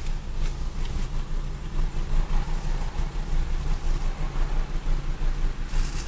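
Car engine idling steadily, a low even rumble heard from inside the cabin with the driver's door open.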